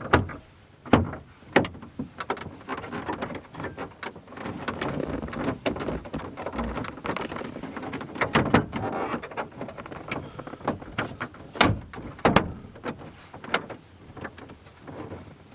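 Plastic dash bezel around the instrument cluster of a 2002 Chevrolet Silverado being pressed and snapped into place: a series of sharp clicks and knocks, with plastic rubbing and scraping between them.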